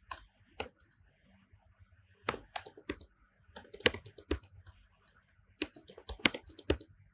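Computer keyboard keystrokes: typing in short irregular runs of sharp clicks, with brief pauses between the runs.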